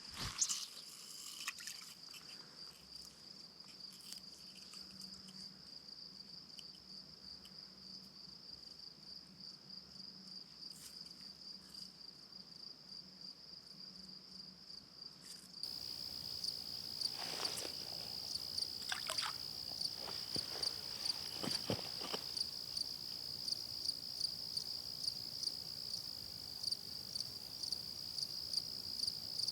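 A steady, high-pitched insect chorus with a fast pulsing trill, typical of crickets, that grows louder about halfway through. Shortly after it grows louder, a few brief sharp knocks or splashes.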